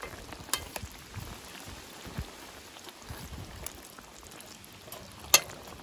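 Fish in coconut and annatto sauce simmering in a pan, a steady soft bubbling and crackle. A few sharp clicks of a fork against the pan as the fish are pushed down, the loudest near the end.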